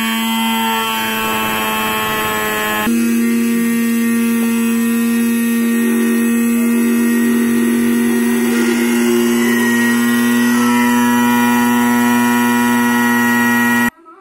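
Small electric spice grinder's motor running at full speed: a loud steady whine with a small shift in pitch about three seconds in, cutting off suddenly at the end.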